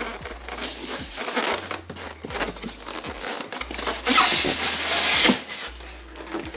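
Packaging being handled during an unboxing: paper and packing material rustling and crinkling, with scattered knocks and clicks, and a louder stretch of rustling from about four to five seconds in.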